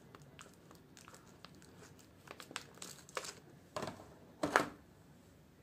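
Clear plastic sweet packaging crinkling and crackling as it is handled and opened, in scattered crackles with the loudest about four and a half seconds in.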